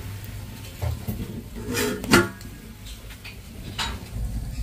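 Enamel cooking pot being set onto a concrete wood-fired stove, with a few metallic clanks of pot and lid; the loudest clank comes about two seconds in.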